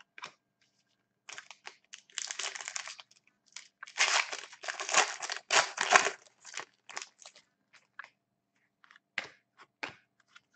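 A foil wrapper on an Upper Deck Artifacts hockey card pack being torn open and crinkled in irregular bursts, loudest about four to six seconds in. A few short clicks follow near the end as the cards are handled.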